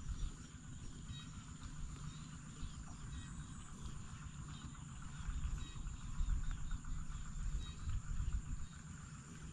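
Outdoor ambience of insects and birds calling, with a steady high insect drone and many short repeated chirps, over a low rumble that grows louder about halfway through.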